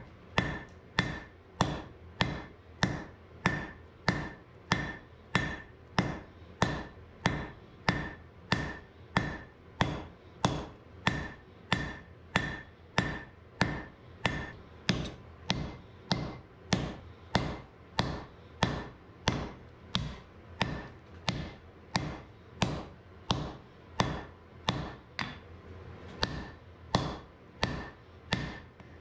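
Blacksmith's hammer striking red-hot wrought iron and steel on an anvil, forging an axe blade, in a steady, even rhythm of about three blows every two seconds. Each blow gives a short ring from the anvil, which is kept quiet by a chain draped across it.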